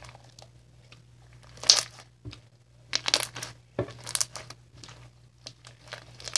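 Hands kneading and pulling slime mixed with wet diaper filling, making irregular short bursts of squishing and tearing sounds.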